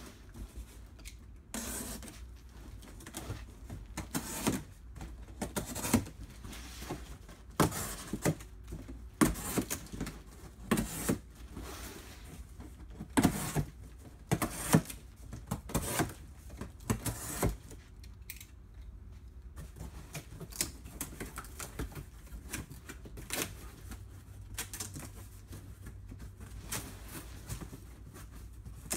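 Corrugated cardboard crackling and scraping as slits are cut into the top of a box and the flaps are bent inward by hand. It comes in irregular sharp strokes, louder through the first half or so and softer after.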